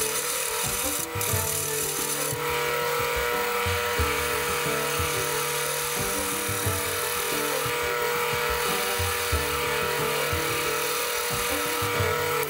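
Wood lathe running while a hand-held turning tool cuts a spinning wooden handle: a steady hiss of shaving over the motor's hum. Background music plays along.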